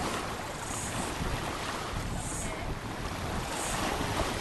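Shallow sea water washing at a sandy beach, with wind rumbling on the microphone.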